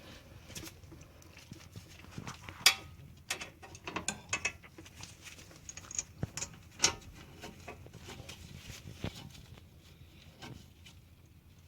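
Irregular metal clicks and knocks of a brake caliper being fitted over new pads onto its bracket, one sharp knock louder than the rest about three seconds in.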